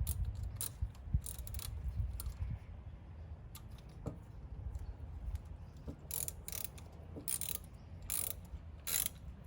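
Ratchet wrench clicking in short bursts as the battery terminal clamp bolt is undone, with more bursts in the second half.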